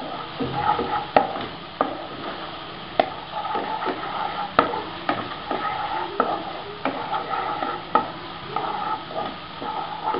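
A wooden spatula stirring and scraping onions and ginger-garlic paste frying in oil in a wok, with sharp knocks of the spatula against the pan about once a second over a steady sizzle.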